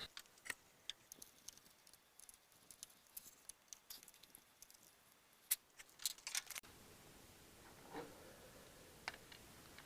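Faint, scattered clicks and light taps of small parts being handled, with a quick run of sharper clicks a little past the middle.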